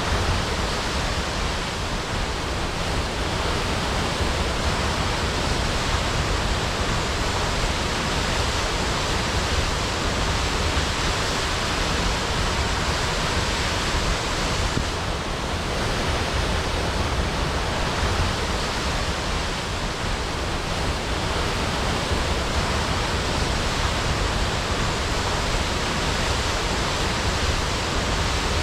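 Waterfall crashing: a steady, even rush of falling water with no change in level.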